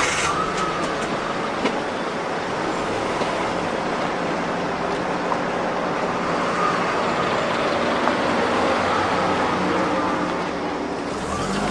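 A car engine running steadily as a car drives by.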